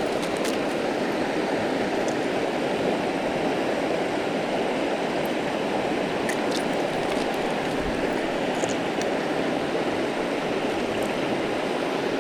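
Steady rush of a rocky mountain creek's water, with a few faint light clicks.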